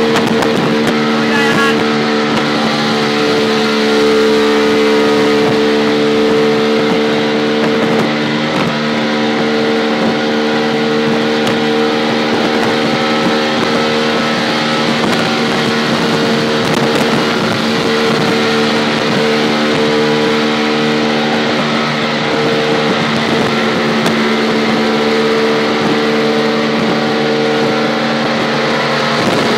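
Auto rickshaw engine running hard at a steady speed, heard from on board as a loud, steady drone.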